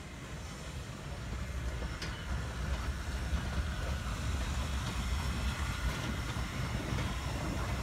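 Frisco 1630 steam locomotive rolling past at low speed: a low rumble that grows louder about two seconds in as the engine draws near.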